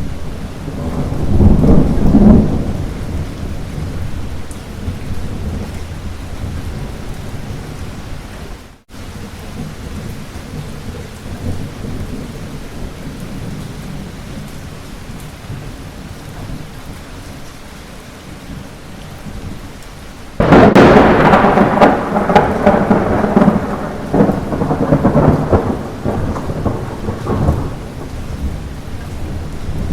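Light rain falling steadily, with rolling thunder: a low rumble swells in the first few seconds. About two-thirds of the way through, a sudden loud thunderclap breaks and rumbles on for several seconds. The sound drops out for a moment about 9 s in.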